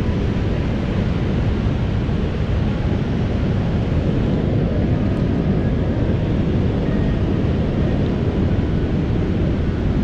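River rapids rushing: a loud, steady wash of white water that holds even throughout.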